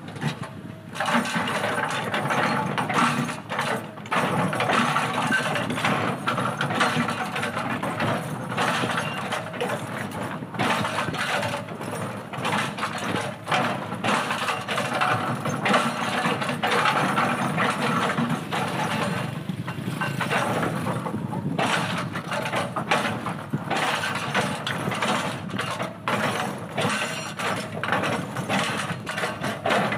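Hydraulic breaker on a CAT 320D excavator hammering boulders, a rapid continuous pounding of steel on rock that starts about a second in and lets up briefly partway through, over the excavator's diesel engine.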